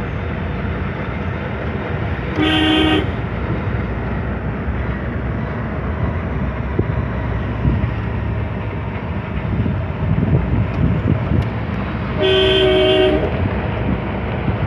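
Open vehicle driving along a road, with steady engine and wind rumble. The horn honks twice: a short toot about two and a half seconds in, and a longer honk of about a second near twelve seconds.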